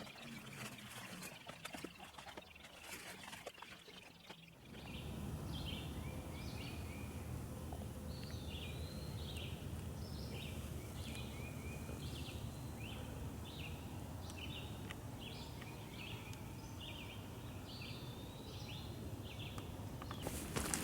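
A bird calling over and over in a long series of short, high notes, some sweeping upward, against a steady low background rumble. This starts about four and a half seconds in; before it there are only scattered rustles and clicks.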